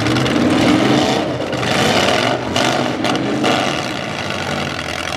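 Several demolition derby cars' engines running and revving together, rising and falling in surges as the cars push and spin in the dirt.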